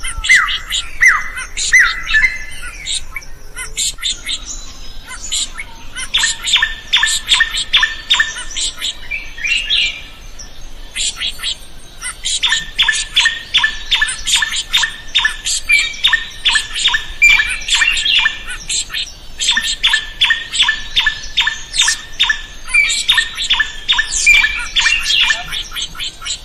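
Drongo calling: long bouts of fast, sharp repeated notes, several a second, broken by a couple of short pauses.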